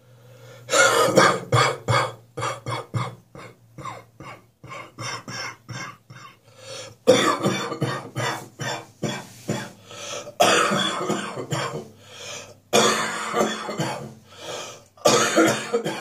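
A person coughing hard in repeated, irregular fits: the lingering chesty cough of a spring cold.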